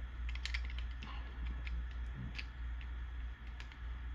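Plastic Transformers action figures being handled and set in place, giving a few scattered light clicks and taps over a steady low hum.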